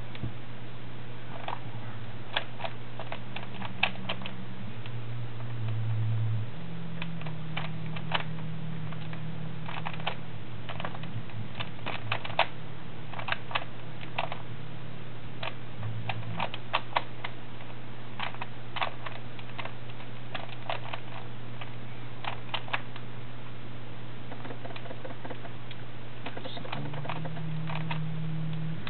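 Rubik's Cube being turned fast during a solve: its plastic layers click and clack in quick, irregular runs of turns, over a steady low hum.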